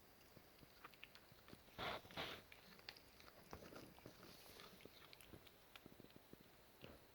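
A cat chewing, with faint small clicks and crunches throughout, and two short louder crunching bursts close together about two seconds in.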